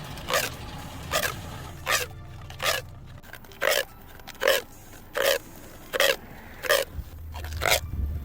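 Rhythmic scraping strokes, one about every three-quarters of a second, over a low steady hum.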